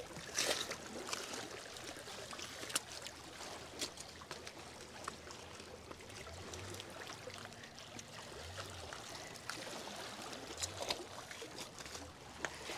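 River water trickling and lapping along a stony shoreline. Scattered clicks and crunches of footsteps on pebbles run through it.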